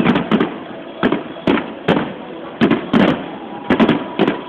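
Fireworks display: aerial shells bursting overhead in a rapid, irregular series of sharp bangs, about two a second, each with a short echo.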